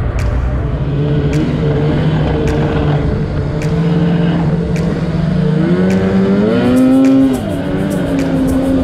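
Snowmobile engine running on the trail, heard from the rider's seat. It revs up in pitch about six seconds in, drops back abruptly a second or so later, then runs steadily again.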